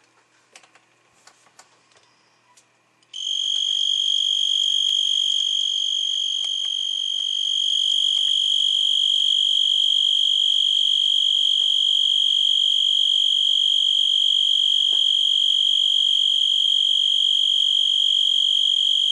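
Male tree cricket singing close to the microphone, wings raised and rubbing together: a loud, steady, high-pitched trill that starts about three seconds in and holds without a break. Before that, only a few faint ticks.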